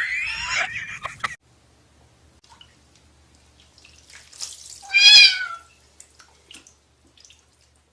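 A cat meowing once, a single drawn-out meow about five seconds in that rises and then falls in pitch, with faint scattered clicks around it.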